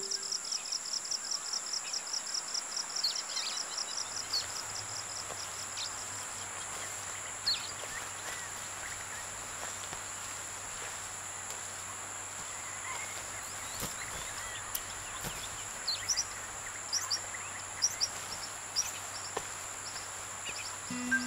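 Forest ambience: insects keep up a steady high-pitched drone, with a fast pulsing chirp for the first several seconds. Scattered short bird chirps come through now and then, with a faint low hum underneath from a few seconds in.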